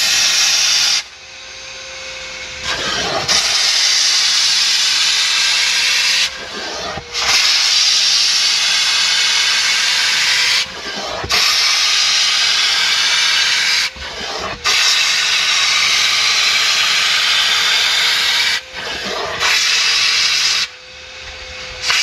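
Steam cleaner gun hissing in repeated bursts of three to four seconds with short breaks, jetting steam into car carpet, while a carpet extractor vacuum runs with a steady whine underneath.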